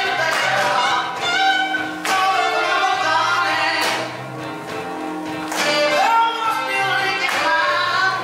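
A blues song playing, with a singer's voice over instrumental backing.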